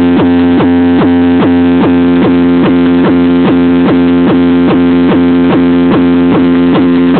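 Car sound system playing a loud, distorted electronic synthesizer loop: a steady drone with a short falling pulse repeating about twice a second.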